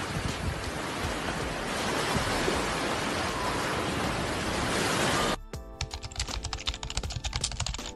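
Steady rush of surf breaking on a beach. About five seconds in it cuts to quick, uneven computer-keyboard typing clicks over faint music.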